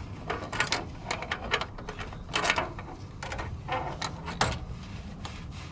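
Ratchet on a long extension with a swivel socket working the bottom bolt of an engine mount: irregular runs of sharp clicks and metal-on-metal clinks.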